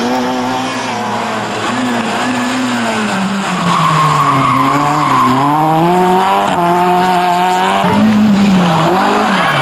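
Opel Corsa A GSI's four-cylinder engine being driven hard, its pitch repeatedly rising and falling with throttle and gear changes.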